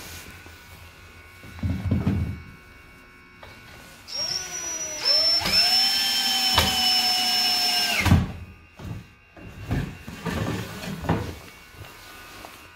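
Cordless drill-driver driving a screw into a wooden frame joint: the motor whine starts about four seconds in, rises in pitch, holds steady for about three seconds and cuts off sharply with a knock. Softer knocks of wood being handled come before and after.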